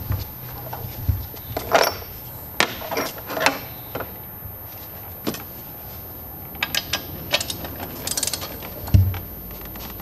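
Hand ratchet on an extension loosening the upper intake manifold bolts: irregular short metallic clicks and rasps of the ratchet, with a quick run of clicks near the end and a sharper knock just before it ends. A faint steady low hum runs beneath.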